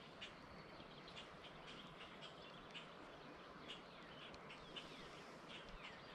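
Near silence outdoors: faint birdsong of short high chirps, a couple a second, a few sliding downward near the end, over a quiet steady hiss.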